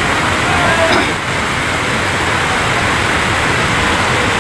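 Steady rushing of river water, with faint voices of the crowd briefly about a second in.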